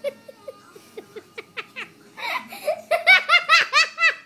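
High-pitched human laughter: scattered short giggles, then about two seconds in it breaks into loud, rapid ha-ha-ha laughter of about five pulses a second.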